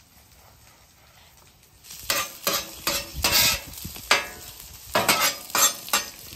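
Metal spatula scraping and turning sliced red onions on a hot Traeger Flatrock flat-top griddle, with about eight quick scrapes over a steady sizzle as the onions fry in rendered bacon grease. The scraping starts about two seconds in, after a quiet stretch.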